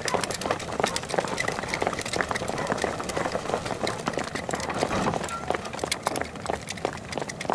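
Footsteps of a group of people running together on hard ground: many quick, overlapping steps.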